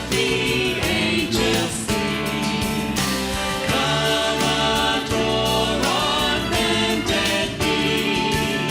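Mixed gospel vocal group singing a Christmas song in harmony, a bass voice low under higher voices, over instrumental accompaniment with a steady beat.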